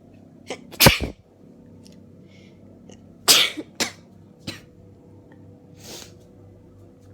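A rapid fit of sneezes from a woman with a cold. The loudest comes about a second in and another strong one about three seconds in, with several softer ones around them.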